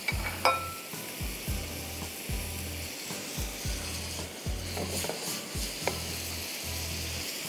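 Marinated prawns sizzling in oil in a frying pan while being stirred and scraped with a spatula, with a few light clicks of the spatula against the pan.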